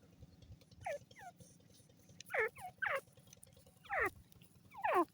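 Francolin (teetar) calling: short notes, each sliding steeply down in pitch, come in small groups of one to three every second or so.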